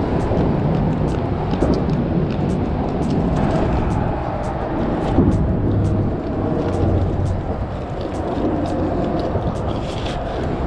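Steady rumble of road traffic crossing the bridge overhead, with small clicks and plastic rustling as a fish is handled into a plastic bag.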